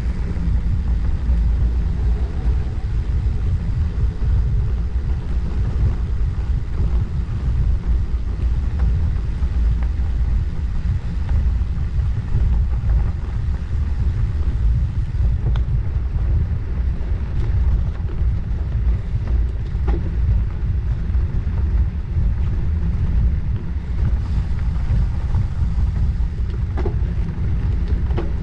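Steady low rumble of wind on a bicycle-mounted camera's microphone, mixed with the rolling noise of 40 mm gravel tyres on the road while riding, with a few faint knocks.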